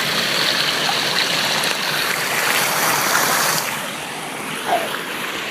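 Waterfall water rushing, a steady even hiss that drops a little in level about three and a half seconds in.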